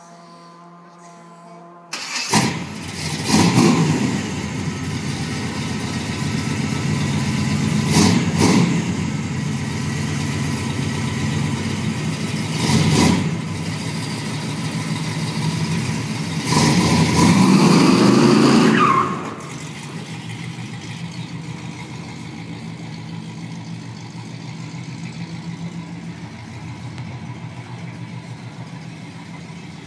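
Chevelle SS's big-block V8 started about two seconds in, blipped several times, held at higher revs for a couple of seconds, then settling to a steady idle.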